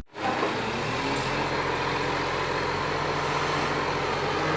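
Truck engine idling steadily, coming in abruptly just after a cut.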